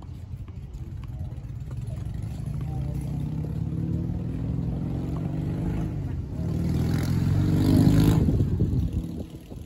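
A motor vehicle accelerating past on the road. Its engine note climbs in pitch and grows louder, peaks about eight seconds in, then fades quickly.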